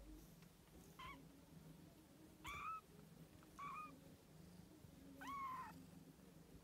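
Newborn kittens mewing: four short, high-pitched calls, each rising and then levelling off, with the last about a second before the end and the longest.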